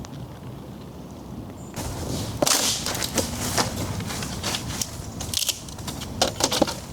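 Sharp, irregular snaps and clicks that start about two seconds in and come thick and fast over a rustling background.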